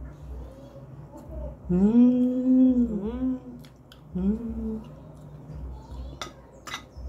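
A person humming a closed-mouth "mmm" of enjoyment while chewing food: one long hum that rises and falls, then a shorter one. Near the end a spoon clinks a few times against a glass plate.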